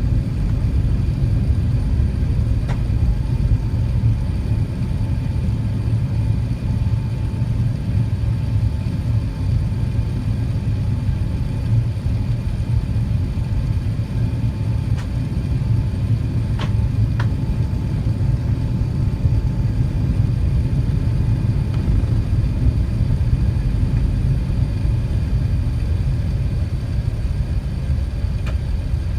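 Steady low rumble of an Airbus A380's engines and airflow heard inside the cabin, with a few faint clicks.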